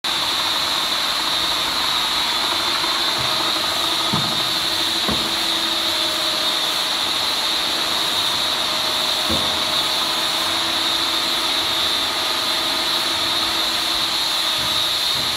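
Steady hiss and whir of running machinery, with a few soft low knocks about 4, 5 and 9 seconds in.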